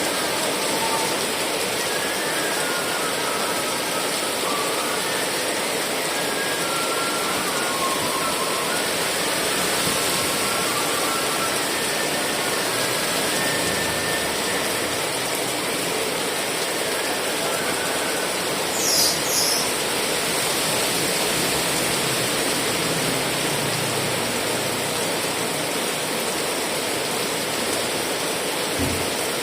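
Steady heavy rain, an even hiss at constant level. Faint wavering high tones come and go through the first half, and a brief high-pitched sound stands out about nineteen seconds in.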